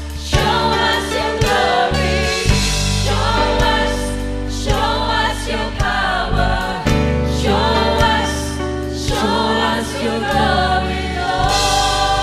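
Live worship band playing a contemporary worship song: several singers singing together in sustained phrases over bass, keyboard, acoustic guitar and drums.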